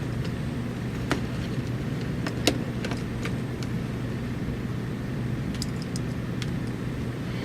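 Scattered small clicks and ticks of tiny screws and a small screwdriver against a netbook's plastic screen bezel, the sharpest about two and a half seconds in, over a steady low background hum.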